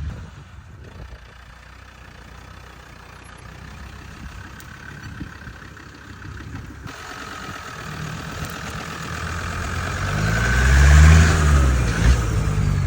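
Land Rover Defender Td5's five-cylinder turbodiesel engine: a quiet low running sound at first, growing louder over the last five seconds, with the revs rising and falling twice near the end.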